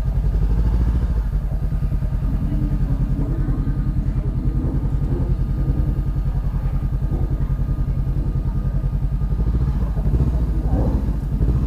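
Honda CB 500F parallel-twin engine idling through a Jeskap aftermarket exhaust: a steady, even, low pulsing beat.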